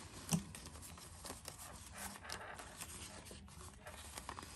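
Paper banknotes rustling as a stack of bills is counted out by hand: a run of soft, quick flicks of paper.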